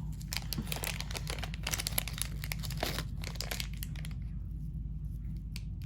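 Plastic packaging crinkling and crackling as a bagged strand of crystal beads is handled, dense for the first few seconds and then thinning to scattered crackles.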